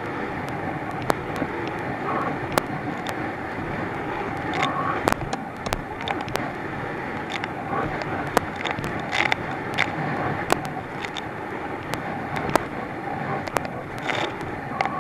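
Thundercat inflatable racing boat running at speed through swell: the outboard engine and rushing wind and water make a steady roar, broken by many sharp irregular knocks and spatters as the hull slams waves and spray hits.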